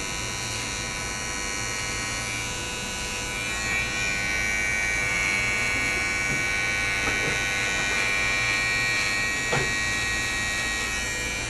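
Corded electric hair clipper buzzing steadily as its blade cuts a line design into very short hair. It gets a little louder about four seconds in.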